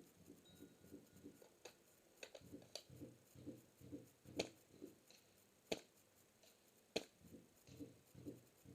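Three sharp shots about a second and a quarter apart from a suppressed airsoft M14 EBR running a Polar Star Fusion Engine, among softer clicks and a run of low regular thumps.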